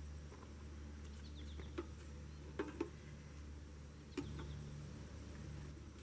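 Quiet background with a steady low hum and a few soft clicks, about four in all, scattered through it.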